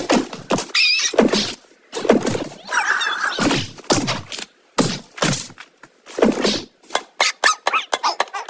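Cartoon bird character squawking and squealing in a string of short cries, mixed with slapstick thunks. The cries come faster near the end.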